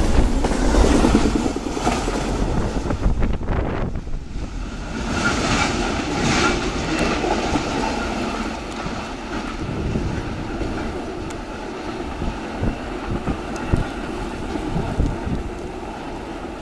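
Amtrak Auto Train's enclosed autorack cars rushing past at speed, wheels running loudly on the rails. After about four seconds the last car has passed and the train's rumble fades away into the distance.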